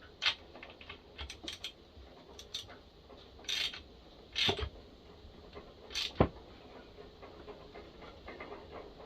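Hammer tapping the setting tool of a spark plug thread-repair insert in a chainsaw cylinder head to flare the insert tight: irregular metallic knocks and clicks, with tool handling between the strikes.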